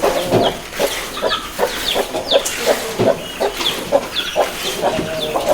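Aseel chickens clucking, a quick run of short calls about three a second, with high chirping notes among them.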